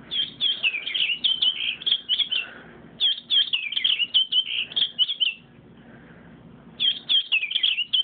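A toy robin playing recorded bird chirps. There are three runs of quick, high chirps, with short pauses between them.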